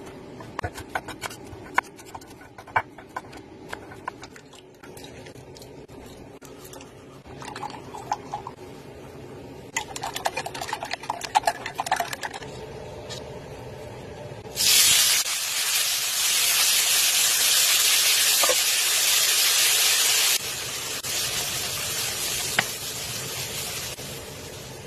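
A knife chopping greens on a wooden chopping board, then chopsticks rapidly whisking eggs in a glass jug. About fifteen seconds in, a sudden loud sizzle as chopped vegetables go into hot oil in a wok. The sizzle holds steady and drops somewhat about six seconds later.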